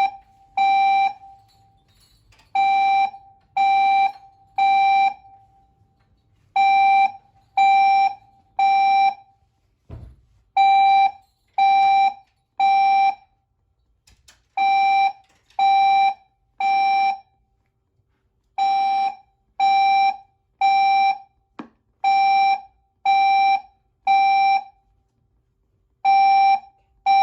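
Building fire alarm sounding the temporal-three evacuation signal: three buzzing tone beeps of about half a second each, then a pause, repeating about every four seconds.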